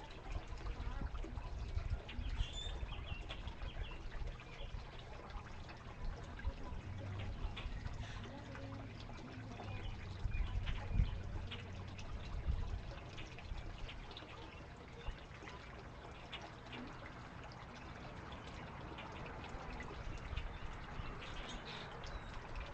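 Faint outdoor ambience: a few short, faint bird chirps and scattered light ticks over a low rumble.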